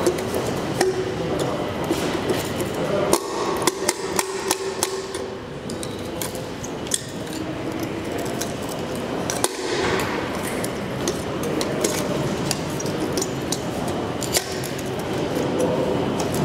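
Hand tools knocking, clicking and scraping irregularly on the metal faceplate of an old Flohr-Otis elevator call-button fixture as it is worked loose from a concrete wall for removal.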